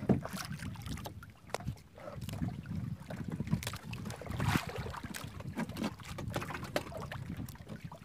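Water lapping and trickling against the side of a small wooden fishing boat, with irregular knocks and clicks as a longline is hauled in by hand over the gunwale.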